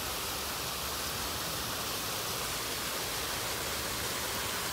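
Steady, even hiss of running and splashing water from the pool area's water features.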